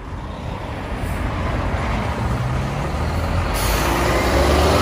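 Heavy diesel truck running close alongside in slow traffic, low engine rumble and road noise growing louder. A sharp hiss of air cuts in about three and a half seconds in.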